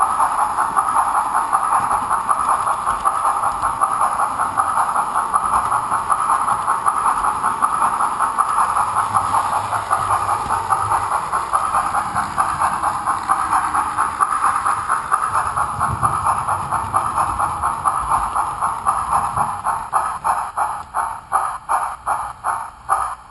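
HO-scale Bachmann 0-6-0 steam switcher's DCC sound decoder playing fast steam chuffing through its small speaker. Near the end the chuffs slow to separate beats about three a second and get quieter as the locomotive slows.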